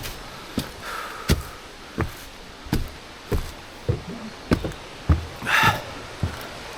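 Footsteps landing on a hard surface at a steady walking pace, about three steps every two seconds, with a short breathy hiss about five and a half seconds in.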